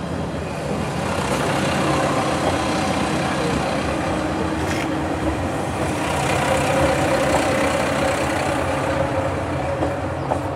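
Two-car Sanriku Railway diesel railcar train passing: the engine drones steadily and the wheels rumble on the rails. It is loudest in the middle and eases off as the train moves away.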